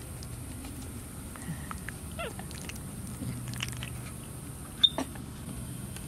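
Capuchin monkeys making a few faint, short squeaks and chirps, one a brief falling call about two seconds in. A single sharp click near the end is the loudest sound.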